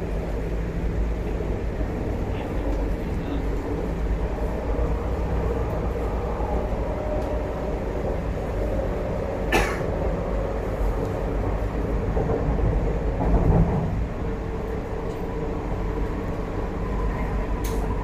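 Cabin interior of an MTR Tuen Ma Line China-built electric train running between stations: a steady rumble of wheels on rail with a low hum. There is a sharp click about halfway through, a brief swell in the noise a little later, and another click near the end.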